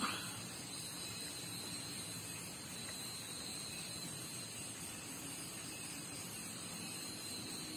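Faint, steady background hiss of a riverside at night, with a thin, steady high-pitched tone above it and one small click right at the start.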